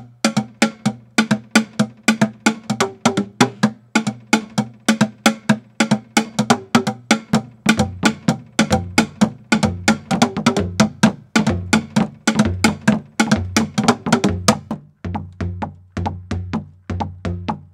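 Large plastic barrels and buckets of a homemade drum wall struck with soft ball-headed mallets in a fast, steady rhythm, about four to five strikes a second, each a short low pitched thud. About fifteen seconds in the strikes move to lower-pitched drums and get a little softer.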